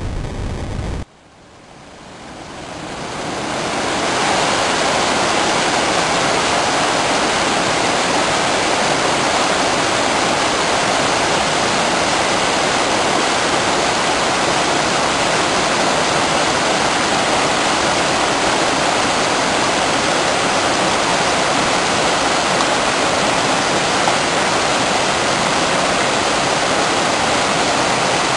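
Mountain waterfall: falling water rushing in a dense, even stream of noise. It cuts in abruptly about a second in, swells up over about three seconds, then holds steady.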